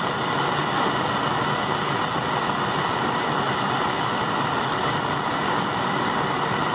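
Hose-fed gas blowtorch burning with a steady rushing hiss while it heats a small brass carburettor part red hot to burn off the rust inside.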